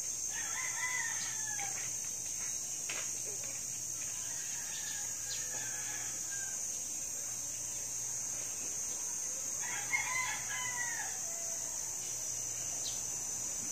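Rooster crowing: one crow about a second in and another near ten seconds, with a fainter call between them.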